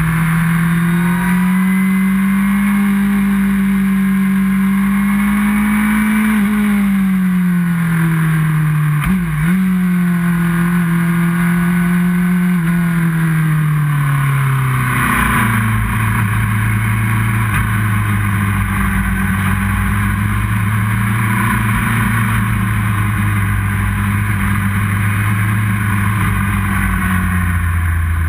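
Onboard sound of a four-cylinder sports motorcycle engine at part throttle with wind rushing over the camera. The engine note holds, dips briefly about a third of the way in, then drops to lower revs about halfway through as the bike slows and stays low to the end.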